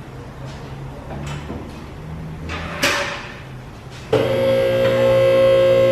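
A low hum with faint clicks, a brief whoosh a little under three seconds in, then loud music from about four seconds in: a held chord of steady tones.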